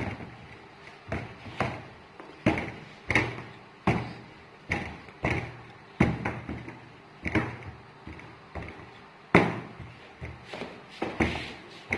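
Rolling pin rolling out puff pastry dough on a worktop, knocking against the surface about one and a half times a second in an uneven rhythm, with one louder knock about nine seconds in.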